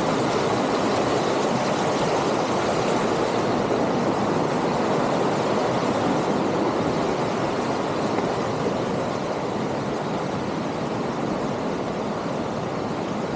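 A swollen woodland stream rushing steadily, running full after heavy rain; it eases off slightly near the end.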